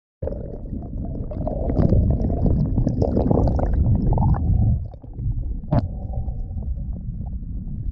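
Muffled rushing and rumbling of water past a kayak's hull, heard through a camera housing below the waterline as the kayak glides through shallow water. It is loudest in the middle and eases about five seconds in, with one sharp knock soon after.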